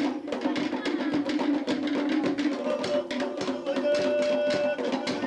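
Fast Polynesian drumming: rapid, even wooden strikes at about eight a second over a steady low drum tone, with a held note joining briefly past the middle.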